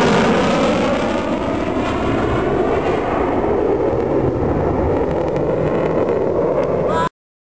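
CF-18 Hornet's twin General Electric F404 turbofan jet engines, loud as the fighter passes and climbs away, the high hiss fading after about three seconds as it recedes. The sound cuts off abruptly near the end.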